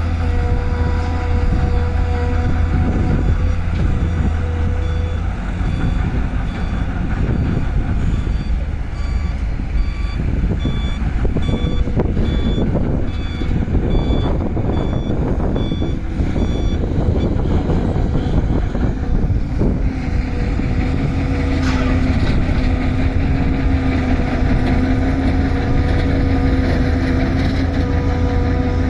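Diesel engines of a Volvo excavator and a dump truck running steadily, with a reversing alarm beeping about one and a half times a second for some eight seconds in the middle. A steady hum comes in over the last third.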